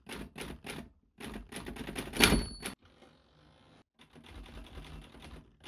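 Typing on an MSI laptop keyboard: quick runs of key clicks for nearly three seconds, a pause, then lighter tapping near the end.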